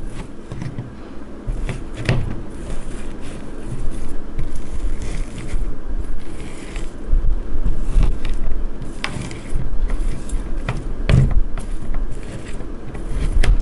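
A heated knife blade pressing and scraping through soft plastic Senko worms on a silicone mat, with a few sharp clicks where the blade meets the mat, over a low rumble.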